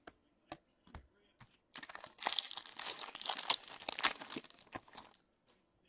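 Foil wrapper of a hockey card pack being torn open and crinkled by hand, a dense crackle lasting about three and a half seconds from just under two seconds in. Before it, a few light clicks of trading cards being handled.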